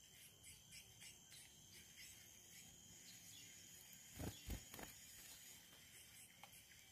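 Faint forest insects buzzing in a steady high pitch, near silence otherwise, with two or three soft low knocks a little past the middle.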